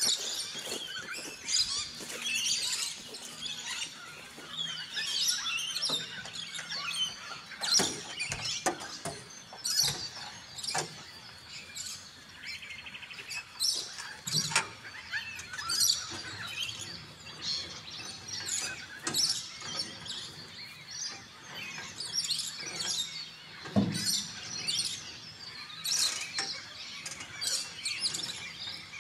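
Many wild birds chirping and calling in bushland, with a few sharp knocks scattered through as people handle the camper trailer.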